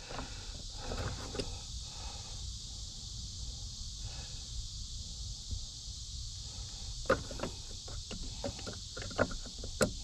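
Small sharp clicks and knocks of plastic and metal being handled as the clutch pedal switch is fitted back into its bracket by the pedals, sparse at first and more frequent in the last few seconds, over a faint steady hiss.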